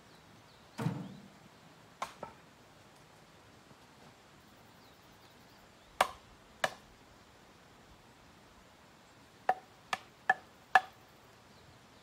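Split firewood knocking on wood as pieces are set onto a round stacked woodpile. There is a heavier thud about a second in, then scattered pairs of knocks, and four quick sharp clacks near the end.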